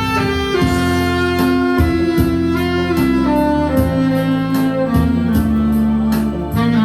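Instrumental music: a saxophone cover played over a backing track, with long held melody notes over a steady drum beat.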